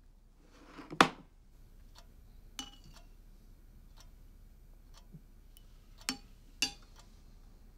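Quartz wall clock ticking faintly, about once a second, with a few louder ringing clicks among the ticks. A single sharp knock about a second in is the loudest sound.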